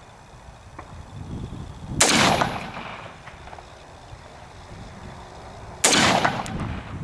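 Two rifle shots from a Ruger AR-556 in 5.56 mm, about four seconds apart, each followed by a short trailing echo.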